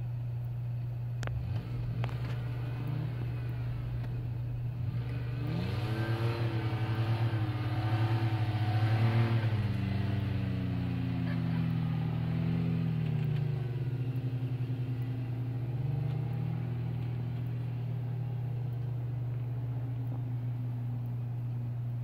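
Engine of a 1998 Ford Ranger 4x4 pickup revving up about five seconds in as it drives through deep snow, holding high with a wavering pitch for several seconds, then easing back down to a steady low run.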